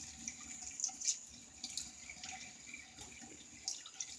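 Tap water running into a sink, with small irregular splashes.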